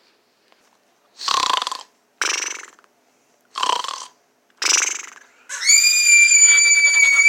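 Snoring: two pairs of short rasping in-and-out snores, then a long, steady, high-pitched whistle that starts about two thirds of the way in and is the loudest sound.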